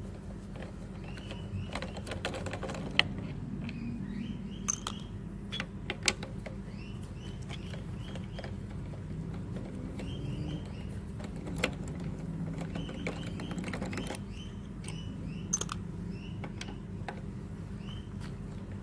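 Screwdriver working a screw inside a lawnmower's plastic air filter housing: scattered small clicks and scrapes of metal on plastic, the sharpest about three and six seconds in, over a steady low hum.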